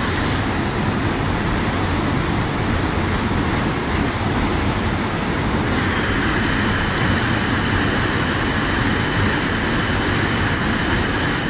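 Waterfall close by, a loud steady rush of falling water.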